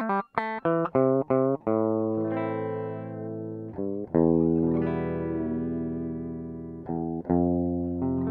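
Electric guitar recorded direct into an Aphex 107 Tubessence tube mic preamp, played back. A quick run of short plucked notes is followed by longer notes left ringing, with a louder one struck about four seconds in and two more plucks near the end.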